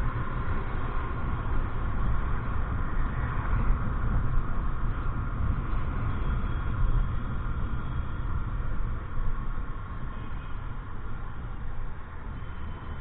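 Steady motorbike and road-traffic noise: a continuous low rumble with no sudden events.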